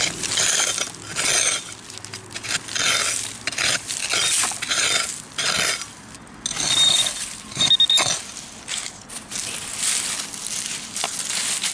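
A hand digging tool scraping and crunching into stony dirt and gravel in a string of strokes, with clinks of stones. About seven seconds in, a detector gives two short high beeps, a sign that it is picking up metal in the hole.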